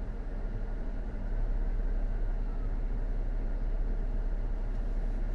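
Cabin noise inside a 2017 Jeep Wrangler Rubicon driving at road speed: a steady low rumble of road, wind and engine noise, growing a little louder about a second in.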